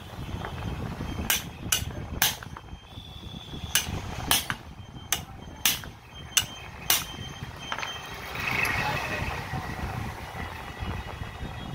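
Hand hammer striking the steel barrel and bit-holder parts of a 5 kg demolition hammer, about nine sharp ringing metal blows at an uneven pace, to knock loose the jammed bit lock. Near the end comes a short rushing noise.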